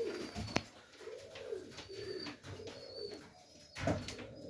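Serbian Highflyer pigeons cooing, several low rolling coos one after another, with faint thin high peeps over them. A sharp click about half a second in and a knock near the end.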